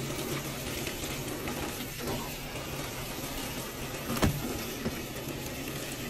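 Water pouring from a top-loading washing machine's dispenser into the drum of sudsy laundry: a steady rushing splash. A soft click about two seconds in and a sharper knock about four seconds in.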